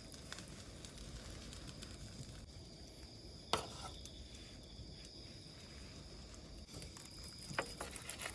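Thick steak cooking over a wood fire: a low, steady sizzle with a few sharp snaps from the fire.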